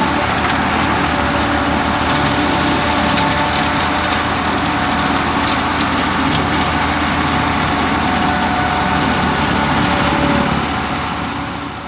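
Tractor engine running steadily while pulling a bush hog rotary mower, fading out near the end.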